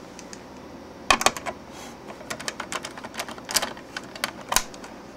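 A screwdriver turning a screw out of an instrument's sheet-metal cover: a string of sharp, irregular metal clicks and ticks, starting about a second in.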